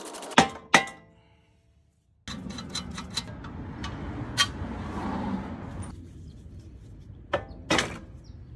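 Metal clanks and clinks of hand tools and steel suspension parts being worked loose: two sharp ringing knocks within the first second, then, after a short gap, a run of scattered clicks and knocks with two more loud ones near the end.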